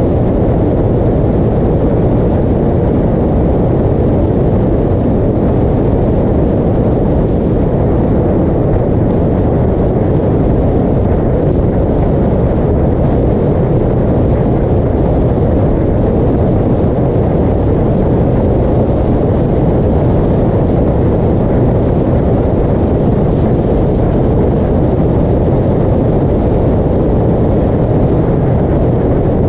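Steady rush of wind and road noise on a motorcycle cruising at highway speed, heavy and low, with the engine buried in it.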